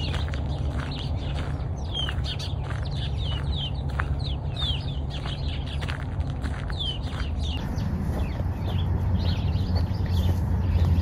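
Small songbirds chirping in the shrubs: a quick, irregular string of short falling chirps, fainter in the last few seconds, over a low steady rumble.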